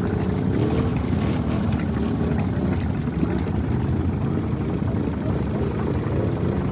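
ATV engine running steadily through deep water, its revs rising and falling a little.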